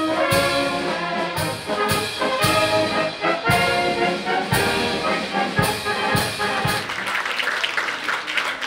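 Brass band playing traditional wind-band music, with trumpets and trombones over a steady beat. The music stops about seven seconds in and is followed by clapping.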